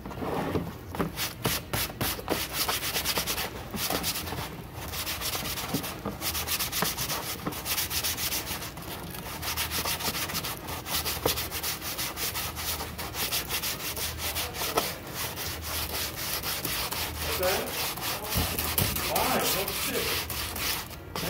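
Rapid, continuous rubbing strokes against the beaver felt of a western hat, a steady scratchy sound like sanding, as the felt is worked over by hand.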